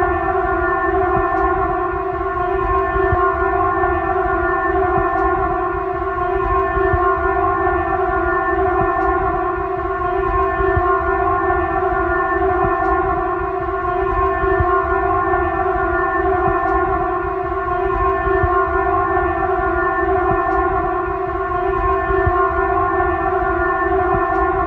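Horror drone sound effect: a loud, steady pitched tone that holds one pitch with no rise or fall, over a low rumble, with faint ticks about every two seconds.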